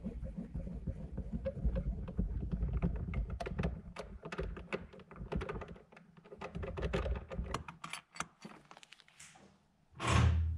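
Metal clicks and rattles from a steel shelter door's handle and latch being worked, over a low rumble. The clicks thin out after about eight seconds, and a short, louder rush of noise comes near the end.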